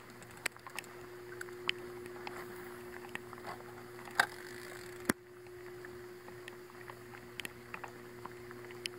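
Small taps and clicks from a plastic fishing kayak and its gear over a steady low hum, with two sharper knocks about four and five seconds in.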